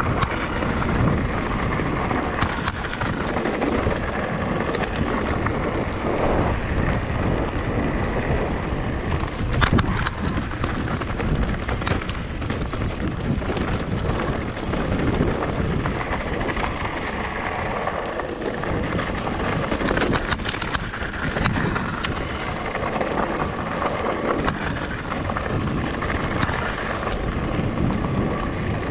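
Wind buffeting the microphone while an e-mountain bike rolls over a rough stony track: a continuous rumble and rush of noise, broken by occasional sharp knocks and rattles from stones and the bike.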